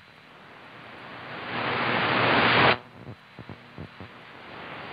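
Static hiss from a Yaesu FTdx10 shortwave receiver tuned between stations on the 31 m band, swelling steadily louder, cutting off abruptly a little past halfway, then swelling again. A few faint ticks sound in the quiet gap.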